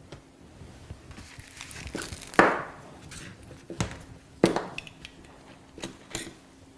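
Handling noise as a blood pressure cuff and the manikin's arm are handled: light crinkling, then several sharp knocks and clicks, the loudest about two and a half seconds in and again about four and a half seconds in. A faint steady hum sits underneath.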